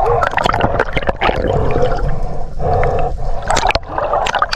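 Water sloshing and gurgling around the camera at the surface, with many sharp knocks and clicks.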